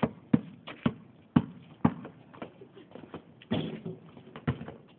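Basketball dribbled on a concrete driveway: sharp bounces about two a second, growing fainter after about two seconds, then a short noisier burst and one last thump near the end.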